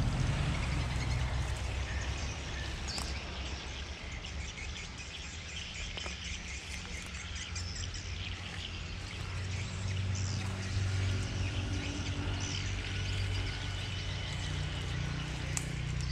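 Small birds chirping over a steady low rumble, with grass and stems rustling against the camera as it moves through the weeds.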